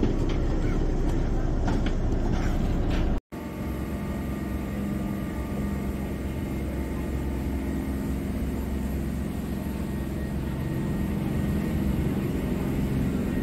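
Passenger shuttle boat's engine running steadily with a low hum while under way on the water. Before a cut about three seconds in, there is the shuffle and clatter of passengers walking across the deck.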